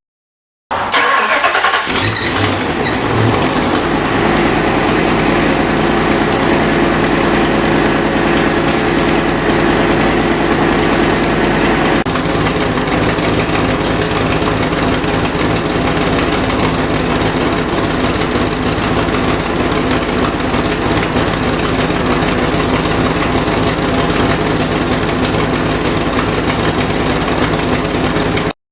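Fox Body Ford's engine starting about a second in, flaring briefly, then idling steadily with a rapid exhaust pulse. The exhaust is leaking at the passenger-side header joint with the X-pipe.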